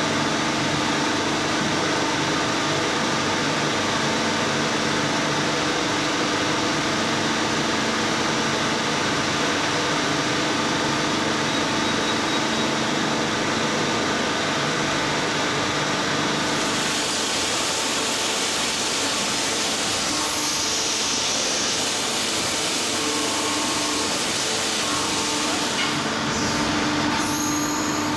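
Steady hum of workshop machinery, with several held tones under a dense noise. About 17 seconds in it turns brighter and hissier.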